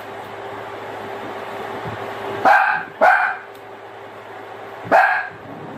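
A dog barking three times: two barks close together about halfway through and one more near the end.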